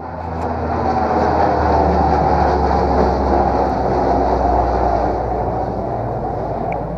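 Loud, steady mechanical running noise with a low hum, starting abruptly.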